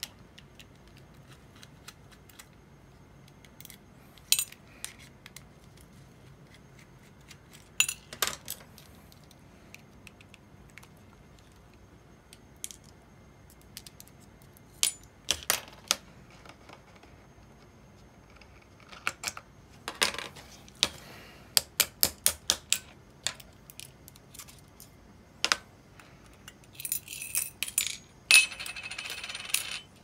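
Small metal parts of an Abu Garcia Ambassadeur 2500C baitcasting reel clicking and clinking as the reel is handled and taken apart. About two-thirds of the way in comes a run of evenly spaced clicks, about three a second, and near the end a longer, denser metallic rattle.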